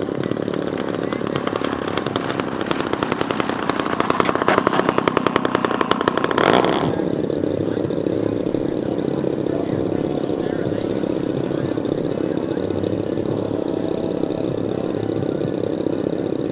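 Large-scale RC model airplane piston engine running. About four seconds in it grows louder, with rapid even pulsing, and about six and a half seconds in there is a brief rush of noise. After that it turns suddenly to a steadier, duller drone.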